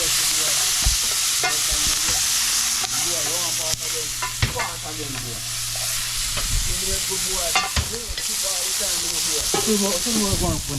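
Chopped garlic, onion and pimento frying in hot oil in a pot, a steady sizzle, with a spoon now and then knocking against the pot as the seasoning is stirred.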